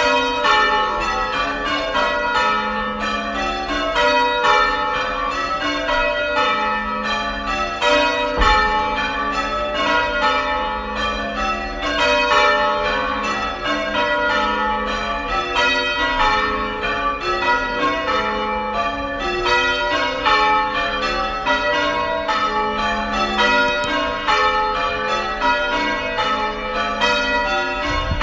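Church bells being rung in changes: a rapid, even succession of single bell strikes whose order keeps shifting, each note ringing on into the next.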